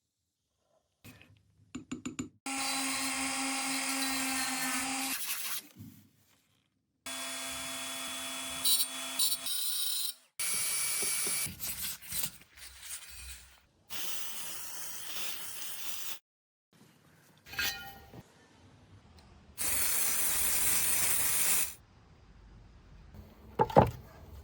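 A handheld power tool works metal in several short separate runs. In some runs it gives a steady pitched hum, in others a hissing grinding or sanding sound, with a few knocks and clunks between the runs.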